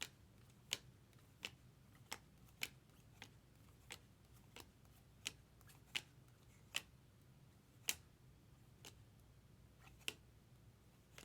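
Chromium trading cards being flipped through one at a time by hand, each card giving a sharp click as it snaps off the stack, a little more than once a second at an uneven pace.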